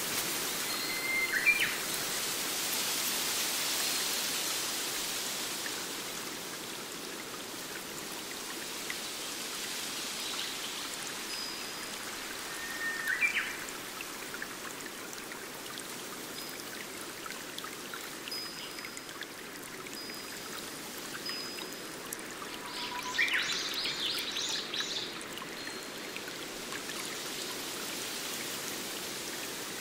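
Stream water running steadily over rocks. Bird calls break in with short chirps near the start and again about midway, then a longer flurry of chirping about three-quarters through, with brief high whistles scattered between.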